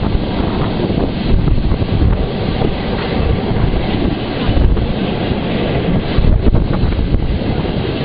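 Historic tram running along street rails, heard from on board: a steady low rumble from the wheels and car, with a few faint clicks.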